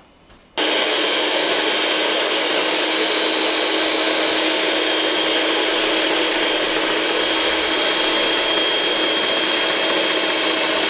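Electric mixer beating egg whites and sugar, switching on abruptly about half a second in and then running at a steady speed with an even whir.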